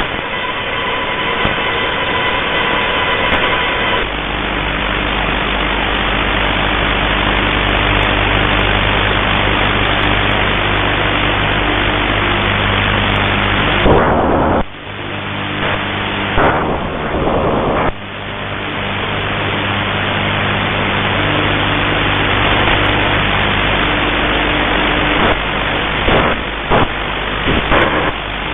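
Shortwave radio receiver putting out loud, steady static hiss with a faint low buzz of steady tones underneath. The hiss breaks off and drops briefly twice around the middle.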